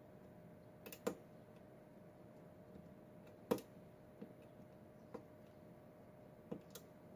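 Lock pick and tension wrench clicking and tapping irregularly against the pins and keyway of a Schlage pin-tumbler lock, about seven light clicks, the loudest about three and a half seconds in.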